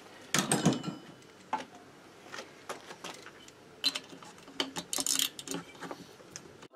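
Irregular metallic clicks and knocks from a ratchet wrench and the engine being handled on the workbench as the cylinder-head nuts of a Motobécane AV89 moped engine are worked loose. There is a louder cluster of knocks about half a second in and another run of clicks around four to five seconds.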